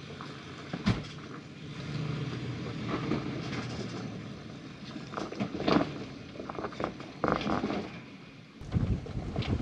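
Lexus GX470's V8 engine running at low speed as the SUV crawls over a rocky trail, a steady low hum, with a number of sharp crunches and knocks from about five seconds in.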